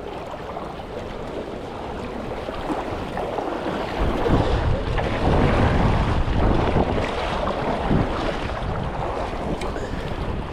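Rushing river water mixed with wind buffeting the microphone, the low rumble growing louder from about four seconds in.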